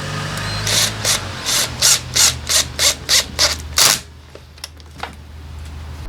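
About ten quick rubbing strokes, roughly three a second, like a part being scrubbed or sanded by hand, stopping about two-thirds of the way through. A steady low hum runs under them, and a couple of faint clicks follow.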